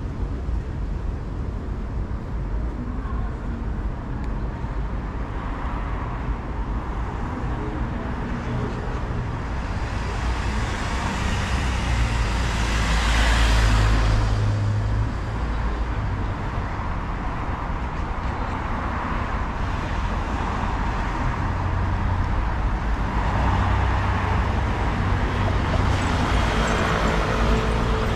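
Road traffic on a city street: a steady rumble of cars, with one vehicle passing close and loudest about halfway through, and another swelling past near the end.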